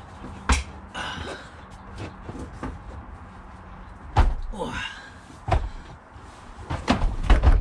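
A heavy Cat portable generator bumped and set down on the rubber cargo liner of an SUV's cargo floor while being lifted in. There are several dull thumps: one about half a second in, a louder one about four seconds in, another a moment later, and a quick cluster near the end as it is pushed into place.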